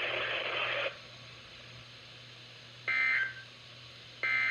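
Weather radio static that cuts off suddenly about a second in. It is followed by two short, warbling digital data bursts about 1.3 s apart: the EAS/SAME end-of-message (NNNN) tones that close the weekly test broadcast.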